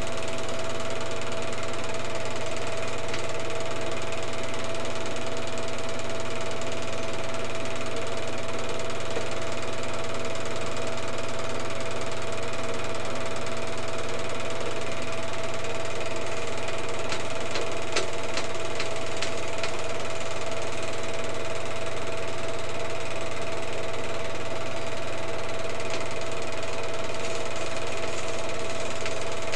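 Film projector running steadily: a constant mechanical whir with a steady hum and hiss, and a short run of clicks just past the middle.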